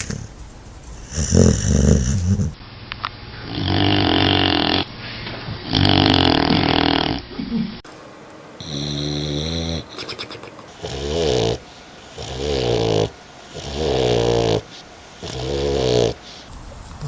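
Dogs snoring: a run of about eight snores, one every one to two seconds, from several recordings spliced together.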